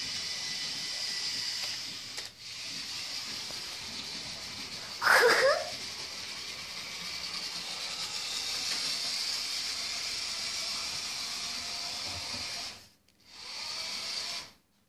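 Märklin My World battery-powered toy train running along its plastic track, its small electric motor and gears whirring steadily. A brief, louder sound rising in pitch comes about five seconds in, and the whir cuts out briefly near the end.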